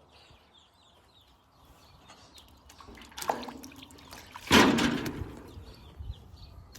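Chicks peeping faintly, then a short loud noise about three seconds in and a louder one about a second and a half later.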